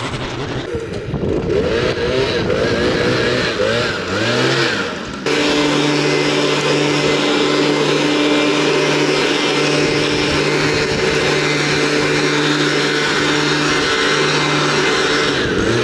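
An engine running with its pitch wavering up and down, then about five seconds in it changes abruptly to a steady, even drone.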